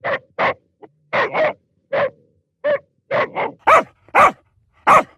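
A dog barking repeatedly, about a dozen short barks, some coming in quick pairs.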